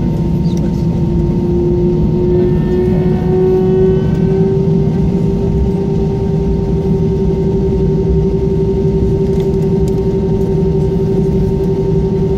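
Airbus A320 cabin noise while taxiing: the steady hum of the engines over a low rumble, with the main tone rising slightly in pitch about two to four seconds in and then holding steady.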